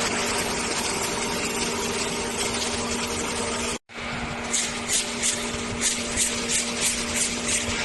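MH410NC2 surface grinder running with a steady motor hum under broad hiss. The sound cuts out for an instant just before halfway. After that, short high hissing bursts come about three a second over the steady running.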